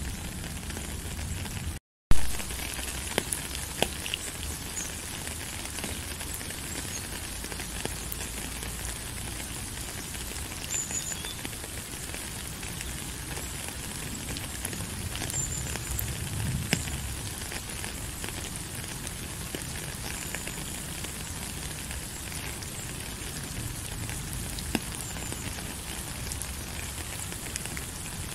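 Steady rain falling, a continuous hiss with fine crackling patter of drops. About two seconds in the sound cuts out for a moment and comes back with a sharp click.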